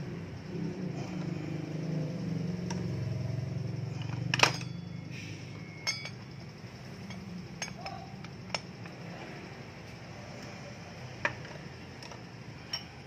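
Metal hand tools clinking as a thread-repair tool is worked on the end of a Yamaha Lexi scooter's crankshaft to re-cut its stripped bolt thread. One sharp clink about four seconds in is the loudest; a few lighter, irregular ticks follow.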